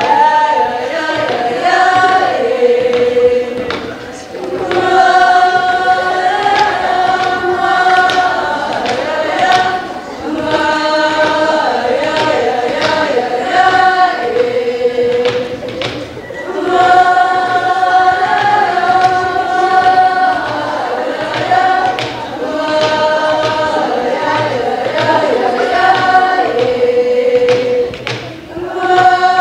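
Group of girls singing a traditional Greenlandic song together, a melody of held notes in phrases that repeat with brief breaks every few seconds.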